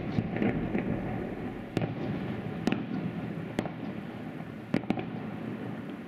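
Aerial firework shells bursting in a salute: a loud bang at the start, then five sharp cracks spaced about a second apart, two of them close together near the end, over a rolling rumble of echoes that slowly fades.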